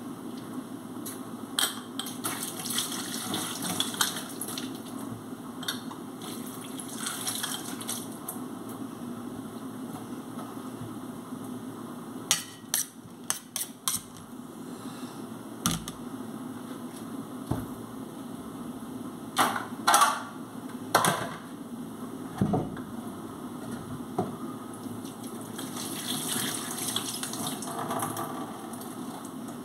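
Knife slicing tomatoes and cucumber on a metal plate, with sharp clicks of the blade against the plate in clusters about halfway through and a few seconds later, over a steady low hum and hiss.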